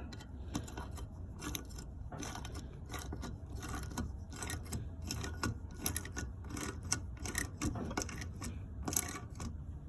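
Ratchet wrench clicking in short strokes as a 10 mm-head bolt is run down through a strut-channel valve spring compressor, compressing an LS valve spring, with light metal clinks of the tool on the cylinder head.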